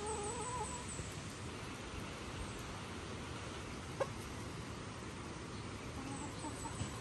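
A chicken gives a short wavering cluck in the first second, over a steady background hiss. A single sharp tick comes about four seconds in, and faint high chirps near the start and near the end.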